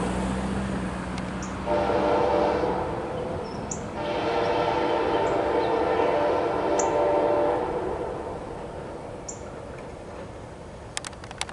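Amtrak SC-44 Charger locomotive's air horn sounding two blasts, a short one and then a longer one of about three and a half seconds, over the rumble of the passing train, which fades away afterward. A few sharp clicks come near the end.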